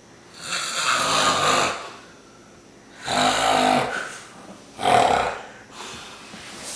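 A sleeping man snoring loudly: three heavy, rattling snores, the third one short, then a weaker breath near the end.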